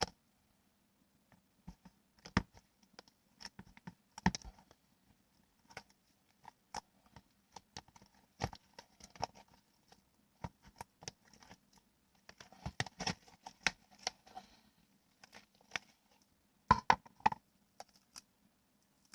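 Slime being squeezed and worked by hand: irregular sharp clicks and crackles, bunched into a few denser flurries, the loudest near the end.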